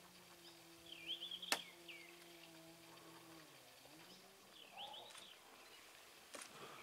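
Faint chirping calls, two short bursts of quick rising and falling whistled notes, over a low steady hum that fades out a little past the middle, with one sharp click about a second and a half in.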